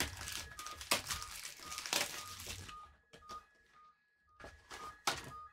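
Packaging of trading card boxes being torn open and handled: crinkling plastic wrap, tearing and sharp cardboard clicks. The sound thins out to a few quieter clicks after about three seconds.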